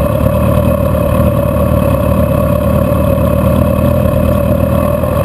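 Steady drone of a car's engine and road noise heard from inside the cabin while driving in slow highway traffic.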